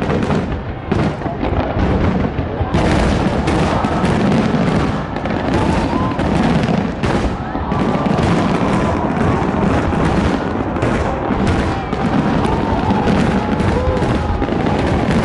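A large fireworks display going off without a break: shell after shell bursting in quick succession, with booms and crackling over a continuous low rumble.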